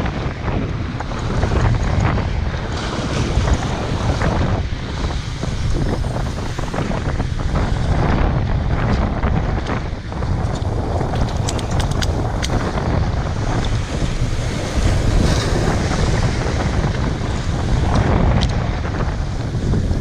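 Wind buffeting the microphone over sea waves washing and breaking against concrete breakwater blocks, a steady loud rumble with a few short ticks about halfway through.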